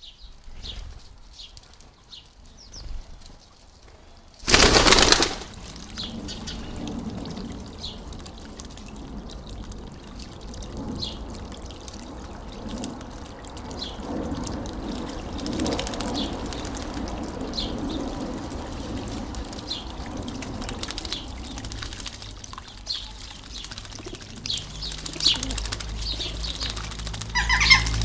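Common starling bathing in a garden bird bath, splashing the water with its wings, over the steady trickle of a small bubbling fountain. A sudden loud flurry of wings and water comes about four and a half seconds in, and faint bird chirps sound throughout.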